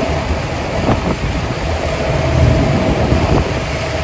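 Wind buffeting the microphone on the open deck of a moving lake passenger boat, a low rumble over the boat's steady engine hum.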